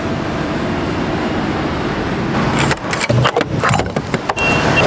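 Steady road traffic going by, then a run of clicks, clunks and scrapes as a petrol pump nozzle is handled and pushed into a car's filler neck, with a short high beep near the end.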